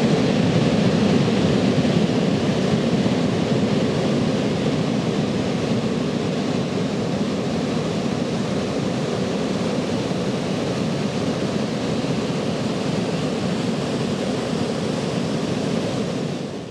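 Ocean surf: waves breaking and washing onto a beach in a steady, even rush of noise that cuts off abruptly at the end.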